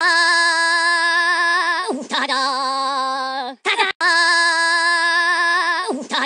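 A singing voice holding a long note with strong vibrato, then a shorter note, the phrase played twice over with a brief break between.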